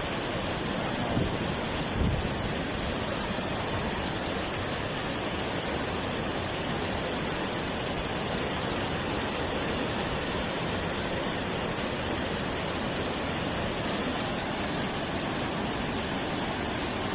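Fast-flowing mountain water rushing steadily, with a couple of brief low bumps about one and two seconds in.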